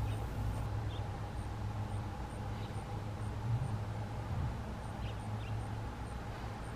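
Steady low background hum with a few faint, short high chirps scattered through it.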